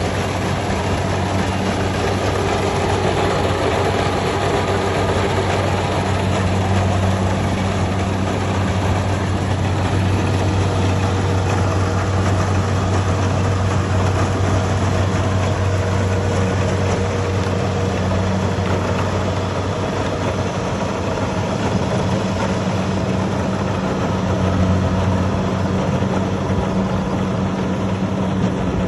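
Kubota combine harvester running steadily: a constant low engine drone under a dense, even mechanical noise, without pauses or changes in speed.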